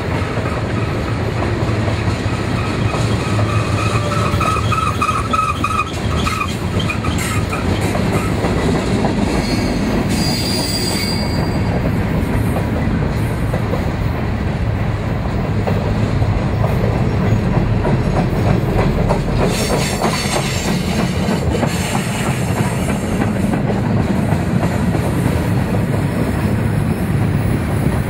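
Freight cars rolling past close by: a steady rumble and clatter of steel wheels on rail. Brief high-pitched wheel squeals come about four seconds in and again around ten seconds.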